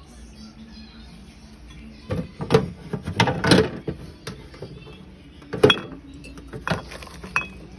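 Drink bottles, cans and snack containers being set into a refrigerator: scattered knocks and light clinks, several in a quick cluster a couple of seconds in, over a faint steady low hum.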